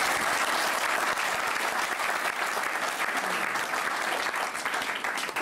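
Audience applauding: dense, steady clapping from a roomful of people that dies away near the end.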